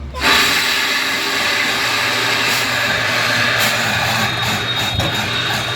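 Borewell drilling rig running: a loud, steady noise that sets in abruptly just after the start and holds level.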